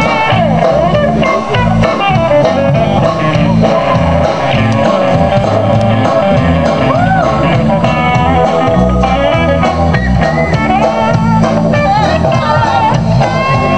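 Live band playing through a PA: guitars and a singer over a steady bass line, in a blues-rock style.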